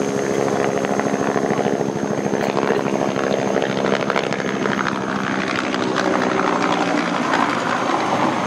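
Bell AH-1S Cobra attack helicopter flying low past, its two-blade main rotor beating rapidly over the steady run of its turbine.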